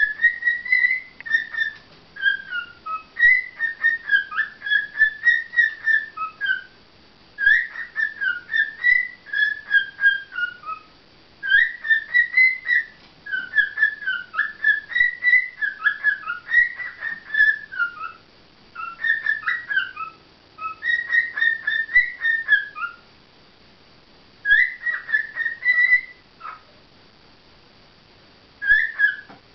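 Lovebirds chirping and warbling: rapid high notes that rise and fall, in phrases of a few seconds with short pauses between them.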